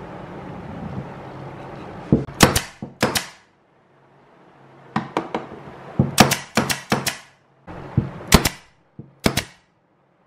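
Pneumatic F30 brad nailer firing brads into plywood: sharp shots in three quick clusters, about fifteen in all.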